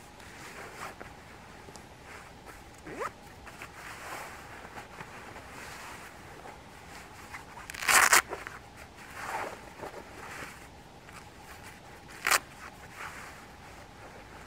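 Clothing handled at the waist as new combat trousers are fastened and adjusted: soft fabric rustling, with a loud zip-like rasp about eight seconds in and a shorter, sharper one near the end.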